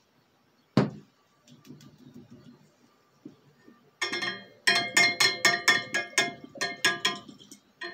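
A sharp glass knock, then a magnetic stir bar rattling inside a glass separatory funnel as the funnel is moved and shaken: a rapid run of ringing glass clinks, several a second, starting about halfway through.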